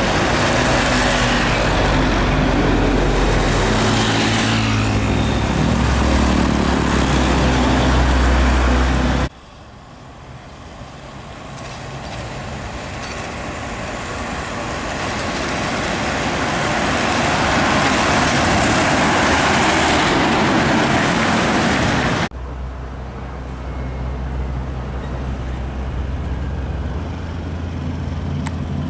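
Heavy diesel trucks driving past in three shots that cut suddenly: a loaded Isuzu truck running close with a strong low engine drone, then a Nissan Diesel UD truck whose engine and tyre noise swell as it approaches, then a low engine drone from a slow line of trucks.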